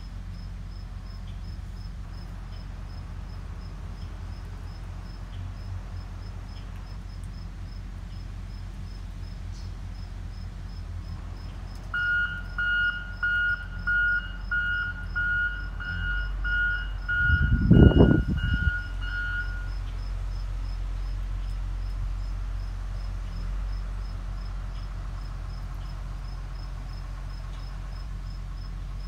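Crickets chirping faintly over a steady low hum. About twelve seconds in, a run of evenly spaced electronic beeps, roughly two a second, goes on for about seven seconds. Near the end of the beeps a brief, loud, low rumble is the loudest sound.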